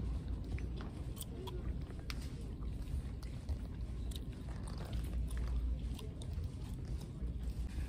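Handling noise from a phone carried while walking: a low rumble that swells and fades, with scattered light clicks and rustles.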